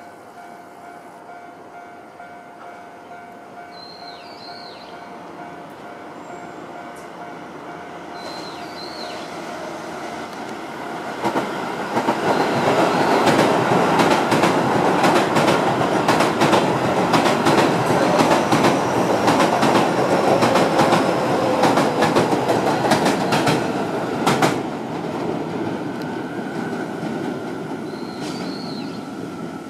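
Keio Line electric train passing over a level crossing: its sound swells from about ten seconds in, then the wheels clack loudly over the rail joints for about twelve seconds before fading. The crossing's warning alarm rings under it as a steady tone.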